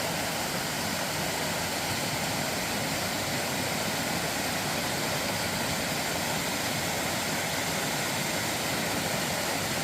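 Valley stream water rushing, a steady even hiss with no breaks.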